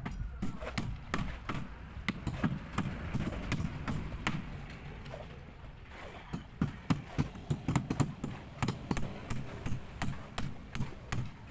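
Hammer knocking repeatedly on a plywood concrete-column form, a run of short sharp taps that comes faster and more evenly in the second half.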